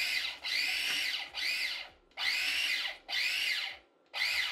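Electric Kenwood mini chopper pulsed on and off about five times as it chops onions; each burst is a motor whine that spins up and winds down.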